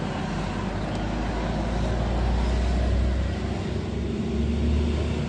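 Low, steady motor-vehicle rumble that swells a little in the middle and again near the end.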